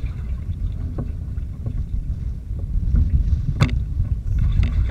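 Low rumble of wind on the microphone and water against the hull of a moving pedal boat, with a few light knocks and one sharp knock about three and a half seconds in.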